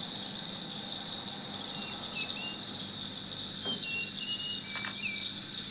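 Steady, high-pitched insect drone, like crickets trilling without pause. A few faint, short bird chirps come through in the background.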